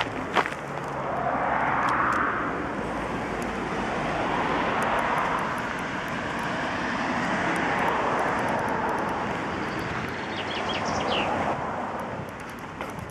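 Road traffic: cars passing on a nearby road, a steady tyre-and-engine rush that swells and fades several times. A bird chirps briefly near the end, and there are two sharp clicks right at the start.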